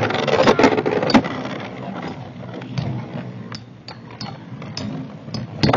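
Two launched Beyblade spinning tops, an L-Drago and a Galaxy Pegasus, clattering as they spin and collide in the stadium. A dense rattle at first thins into scattered sharp clicks, with one loud clack near the end.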